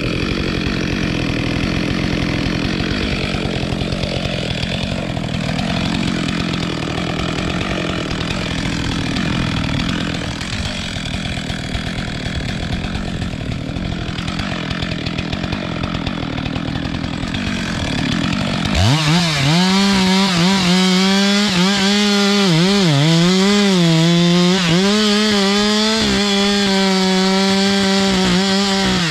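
Two-stroke chainsaw running hard while cutting wood. For the first part it gives a rough, noisy sound. About 19 seconds in it switches abruptly to a louder, clearer engine note whose pitch dips and recovers several times as the chain takes load.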